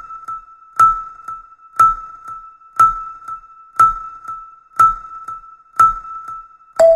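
Electronic background music: a strong beat about once a second with softer ticks between, over a held high note that drops to a lower note near the end.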